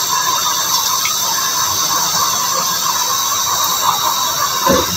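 Steady hiss from cooking oil heating in a pan over a gas burner.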